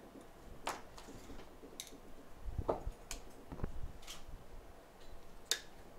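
Scattered light clicks and ticks, with two soft low knocks near the middle, from tweezers and an iPhone 8 logic board being handled on a repair bench.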